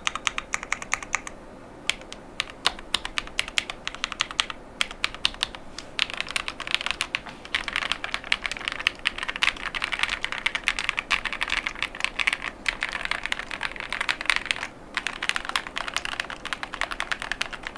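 Fast typing on a KiiBoom Phantom 81 V2 mechanical keyboard with KiiBoom Crystal Linear 55gf linear switches and polycarbonate ASA-profile keycaps: a quick run of key strokes, broken by a few brief pauses.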